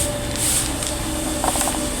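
Workshop noise: a steady mechanical hum with short hissing bursts and a few light knocks about a second and a half in.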